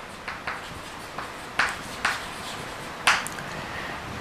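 Chalk writing on a chalkboard: a string of short, separate strokes and taps, the loudest about three seconds in.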